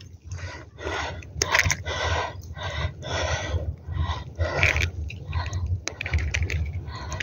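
Handling noise as a hand grips a freshly caught sea bream pressed against the phone: a string of short, irregular rustling scrapes, about two a second, over a steady low rumble.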